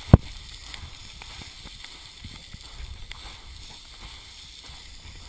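Footsteps crunching and skidding on loose rock and dry dirt on a steep slope, with scattered small ticks of stones. There is a single sharp knock just after the start, the loudest sound, with handling noise from the camera.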